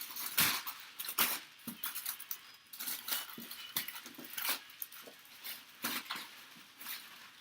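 Cardboard packaging being opened by hand: a quick, irregular run of scraping, tearing and rustling noises.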